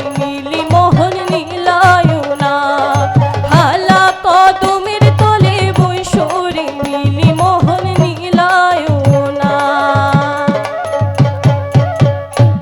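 Bhawaiya folk music: a bending melodic line over a steady, quick pattern of drum strokes.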